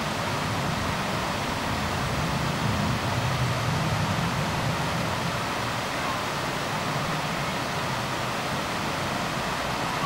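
Mountain waterfall cascading over rock ledges into a pool: a steady rush of falling water.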